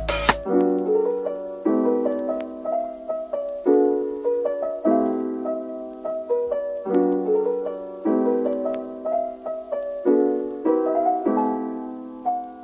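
Background music: a slow, soft piano piece with a new chord struck about once a second, each left to ring and die away.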